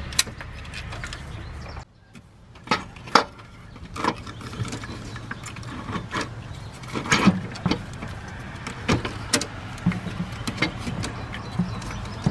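Scattered clicks and knocks of a car alternator and its wiring connector being handled and worked loose in an engine bay, over a low steady background hum.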